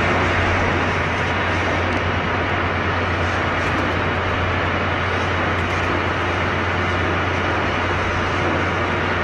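Loud steady roar at a land drilling rig, with a strong low hum underneath and no letup.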